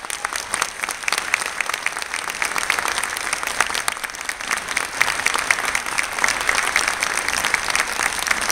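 Audience applauding: many hands clapping together, growing a little louder after the first second.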